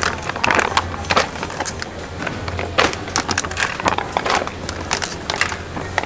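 Plastic detergent refill pouches crinkling and rattling as they are handled and dropped into a wire shopping trolley: a string of irregular clicks and rustles over a steady low hum.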